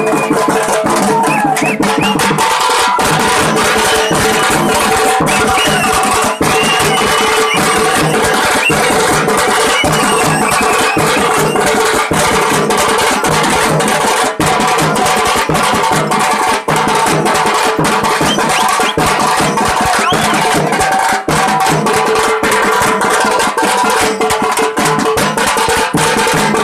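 Live street drum band playing a fast, dense beat on hand-struck drums, with steady pitched tones held over the drumming.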